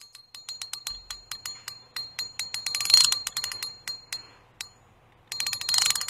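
Intro sound effect: a run of sharp, bell-like ticks with a high ringing tone, about four or five a second, loudest about three seconds in. It breaks off briefly and then resumes as a fast flurry near the end.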